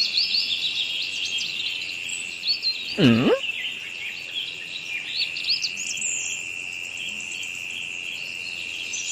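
Rural ambience of many small birds chirping over a steady, high insect drone, with one brief low animal call that dips and rises in pitch about three seconds in.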